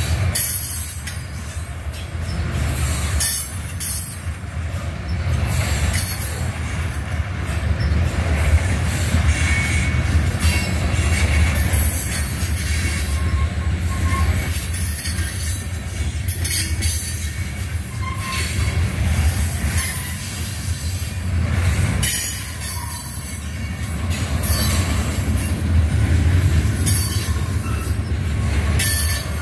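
Freight train of covered hoppers and tank cars rolling past close by: a steady low rumble of steel wheels on rail, with short clattering knocks every second or two.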